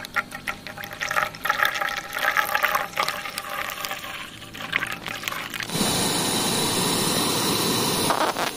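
Milk poured from a carton into a metal pot of water, splashing and gurgling unevenly. About six seconds in, a steady hiss from the lit burner of a portable gas canister stove takes over.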